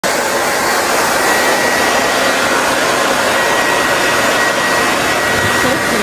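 Handheld hair dryer running steadily, blowing air, with a thin steady high tone over the even rush of air.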